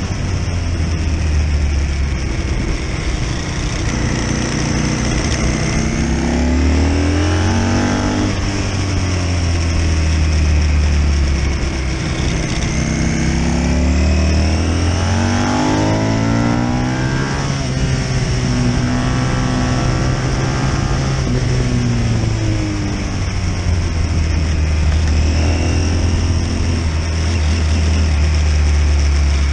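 Britten V1000's 999 cc 60-degree V-twin at racing speed, revving up through the gears and dropping back several times, its pitch rising and falling, with wind rushing past.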